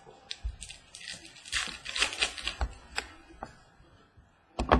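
Football trading cards being handled on a wooden table: scattered clicks and a dense stretch of rustling and clicking as cards slide and are sorted, then a sharp tap near the end.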